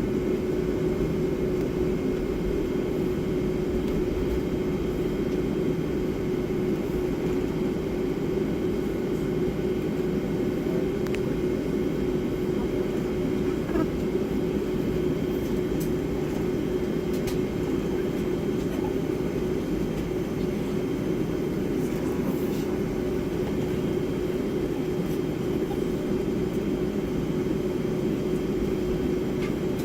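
Steady cabin drone of a Boeing 757-300 taxiing with its jet engines at idle, a constant low rumble with a steady hum running under it.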